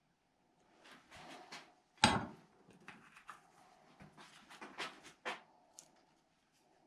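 Workshop handling sounds: a few short scraping or rubbing strokes, one sharp knock about two seconds in that is the loudest, then more short strokes and light clicks.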